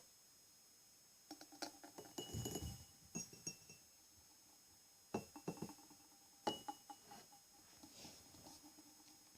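Quiet ASMR tapping and clicking close to the microphone in two short flurries, a few of the taps leaving a brief glassy ring.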